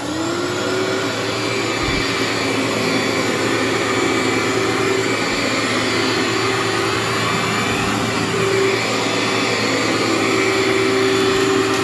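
Cleartrak/Workhorse upright vacuum cleaner running steadily just after being switched on. It comes up to speed in the first moment and then holds an even, loud whirring with a steady hum. The brush roll is spinning on a newly fitted brush and belt.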